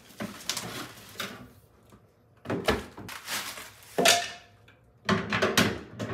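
Knocks, scrapes and clatter of a cardboard box and packing pieces being lifted out of a thin sheet-metal fountain base and set down. The loudest knock comes about four seconds in with a brief ring, and a quick run of clatters follows near the end.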